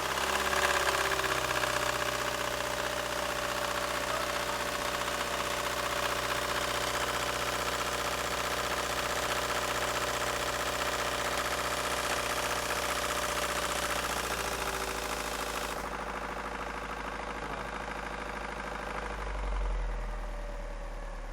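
Ford Focus 1.6 Zetec four-cylinder petrol engine idling steadily with a horrible, diesel-like sound.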